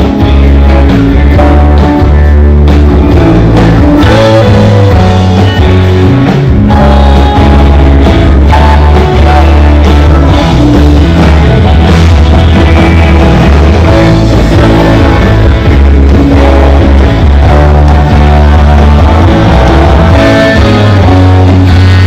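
Loud band music, electric guitar over a heavy bass and drums, playing without a break.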